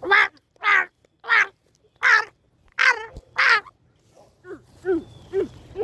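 Crow cawing: six loud caws in quick, even succession, then several fainter, shorter caws near the end.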